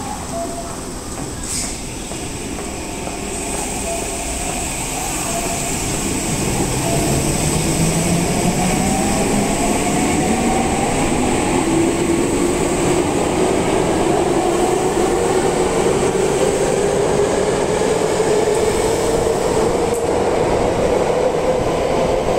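Saitama Railway 2000 series subway train pulling out of the platform. Its electric traction motors give a whine that rises steadily in pitch as it accelerates, and the running noise grows louder as the cars pass.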